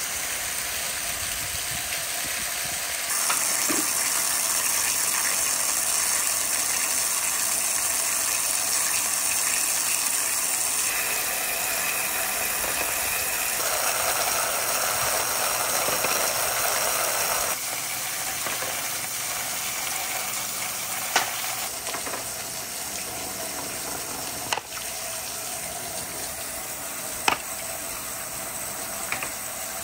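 Water rushing down rain-gutter chutes, carrying a wooden ball rolling along in the stream: a steady hiss of flowing water, with four sharp knocks in the second half.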